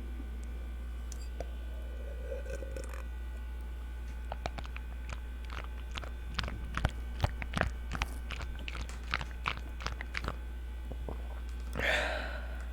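Close-miked ASMR mouth sounds: wet tongue and lip clicks and smacks, sparse at first and coming quickly in the middle, over a steady low buzz from a running radiator. A short breathy sound comes near the end.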